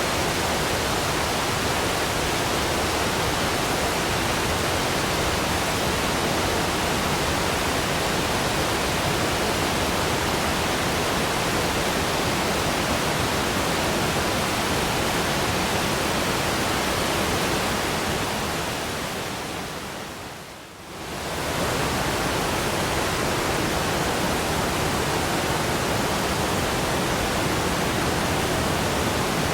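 Waterfall rushing in a steady, dense roar of falling water. About eighteen seconds in it fades down, and it comes straight back up near twenty-one seconds.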